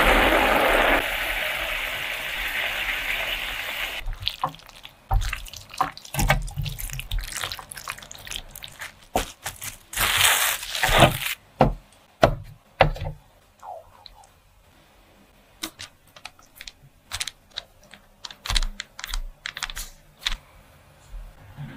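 Kitchen handling sounds: a steady hiss from the pan of diced pineapple for the first four seconds, then scattered light taps and clicks. A rustling crinkle of plastic wrap being pressed down comes about ten to eleven seconds in.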